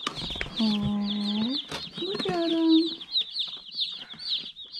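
A box of day-old Cornish Cross broiler chicks peeping nonstop, many high, quick chirps overlapping into a continuous chorus.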